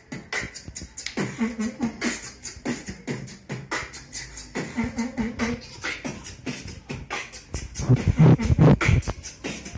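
Vocal beatboxing of a trap-style beat: a steady rhythm of mouth-made kick, snare and hi-hat clicks with short hummed bass notes, and louder, deeper bass kicks coming in about eight seconds in.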